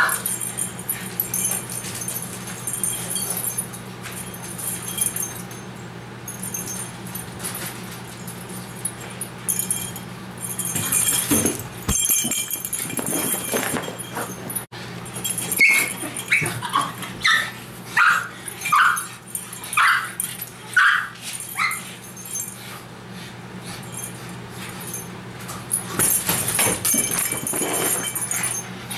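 Pug whining, a run of about eight short high-pitched cries about halfway through.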